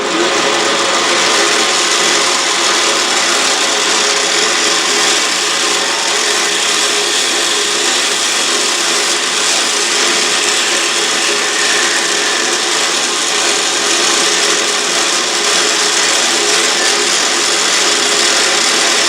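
Autobox 8x16 mini lathe running steadily, its motor and gears giving several steady tones under the continuous hiss of a cutting tool facing off the end of a workpiece.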